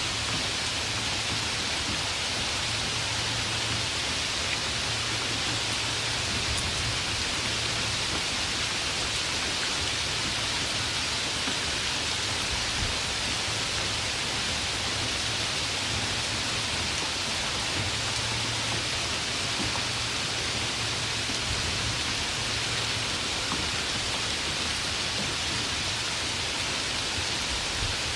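Steady rain falling, an even hiss with a faint low rumble underneath and no thunder.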